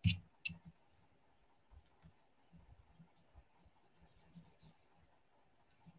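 Faint scratching and ticking of a watercolour brush working paint over a textured modeling-paste surface on paper, with a sharp tap right at the start and a smaller one about half a second in.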